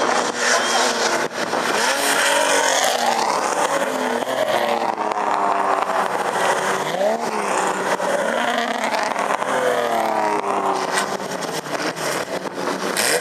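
Racing car engines accelerating down a straight, their pitch climbing and then dropping a few times as they change gear, with more than one engine heard at once.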